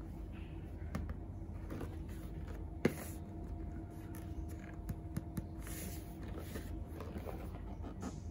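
Packaging of a bathroom scale being handled and opened: scattered light clicks and rustles, with one sharper knock about three seconds in, over a steady low hum.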